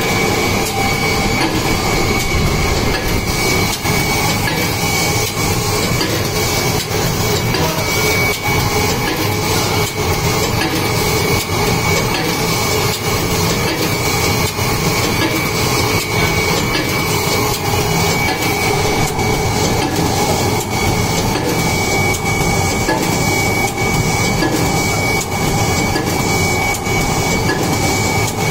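JDGT-TF paper tulip cup forming machine running steadily: a continuous mechanical clatter of quick repeated clicks and knocks over a steady high-pitched tone.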